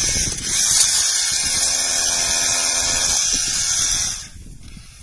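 Hand-held hammer drill boring into volcanic rock, running steadily and stopping about four seconds in.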